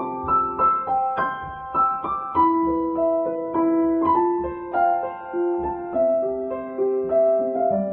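Background piano music: a gentle melody of single notes, each struck and fading, at a steady pace.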